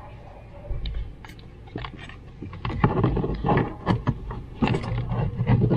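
Irregular rustling, clicks and knocks of a dashcam power cable and a plastic zip tie being handled and pushed in among the plastic trim and wiring, getting busier about halfway through.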